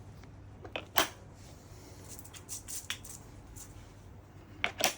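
Plastic parts of a robot vacuum's base station clicking and knocking as they are handled and fitted together, with a sharp click about a second in, lighter clicks in the middle and two quick clicks near the end.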